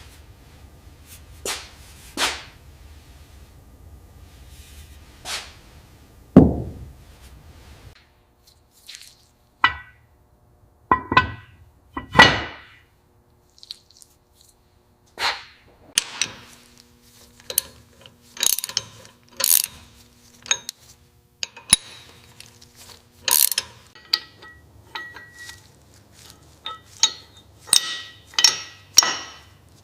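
Irregular clicks, knocks and clinks of hand tools and metal parts being handled and fitted, some with a short metallic ring; the hits come more often in the second half.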